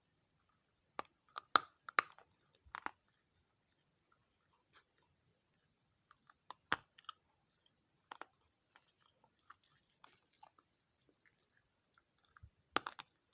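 Dry multani mitti (fuller's earth clay) chunks being bitten and chewed close to the microphone: sharp, brittle crunches in a cluster over the first few seconds, single ones about seven and eight seconds in, and a loud one near the end, with faint crackling between them.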